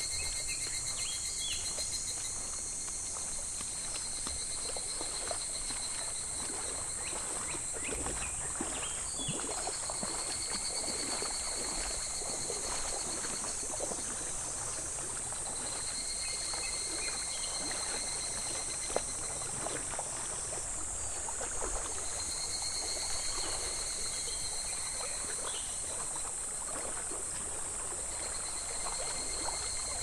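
Shallow mountain stream babbling over a pebble bed, with a steady high cicada chorus and one cicada calling in pulsing phrases a few seconds long, broken by short pauses.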